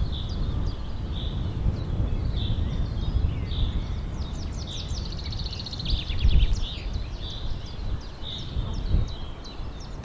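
Birds chirping: a short high note repeating about once a second, with a quick trill just past the middle, over a steady low rumble.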